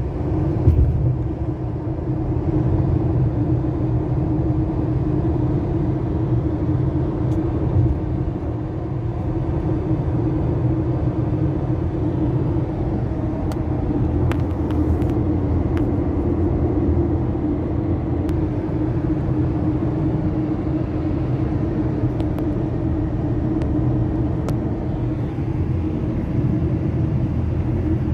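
Road and engine noise heard inside a moving car's cabin: a steady low rumble with a constant droning hum, and a few faint ticks.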